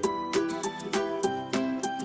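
Background music on a plucked string instrument, single notes picked at about three or four a second.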